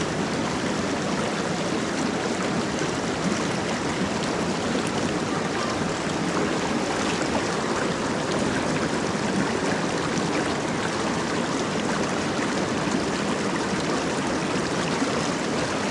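Small rocky stream rushing steadily over rocks and small cascades.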